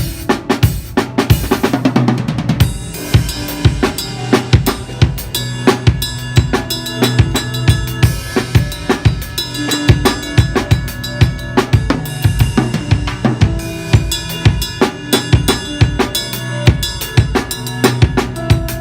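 Drum kit played in a steady, busy groove during a sound check: bass drum, snare and cymbal hits throughout, over held low notes.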